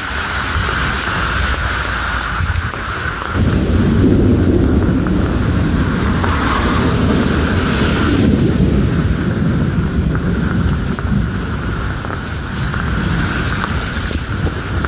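Heavy rain falling on an umbrella, with a long low rumble of thunder that comes in suddenly a few seconds in and fades out near the end.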